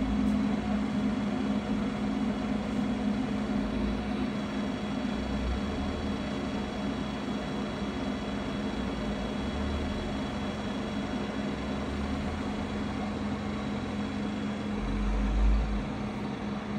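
Mecca Turn 460x1000 lathe running, a steady mechanical hum from its motor and gear train as the carriage travels along the bed under power longitudinal feed. A brief low rumble comes about fifteen seconds in.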